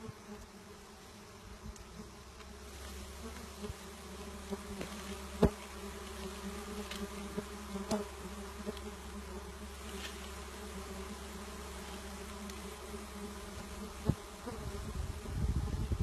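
A cluster of dwarf honeybees on their exposed comb gives a steady buzzing hum. There are a few sharp clicks, one loud one about five seconds in, and louder handling noise near the end as the comb is cut and moved.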